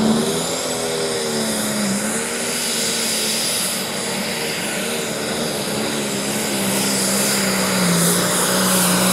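Super stock pulling tractor's engine running flat out under load down the track: a steady pitch with a high whine over it, dipping briefly about two seconds in and again near the end.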